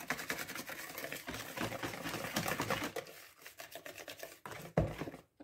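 Wire whisk beating chocolate muffin batter in a bowl: fast, rhythmic clicking and scraping of the wires against the bowl that stops about three seconds in. A few scattered light clicks follow, then one louder knock near the end.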